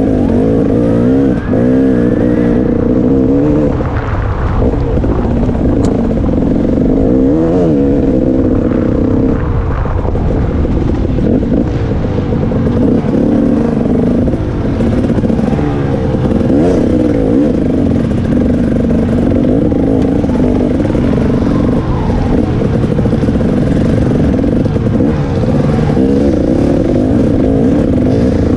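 KTM 300 XC-W Six Days single-cylinder two-stroke engine heard close up from the bike, revving up and down continually as the throttle is worked.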